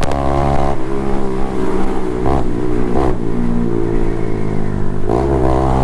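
Honda CG 160 Titan's single-cylinder four-stroke engine running under way. The note drops about a second in, gives two brief rises in pitch midway, and picks up again near the end.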